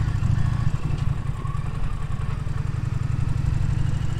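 Indian Challenger motorcycle's V-twin engine running steadily with a deep, pulsing low rumble as the bike rolls along.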